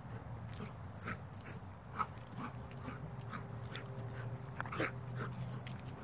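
A dog whimpering and yipping in short, separate cries several times, the sharpest about two seconds in.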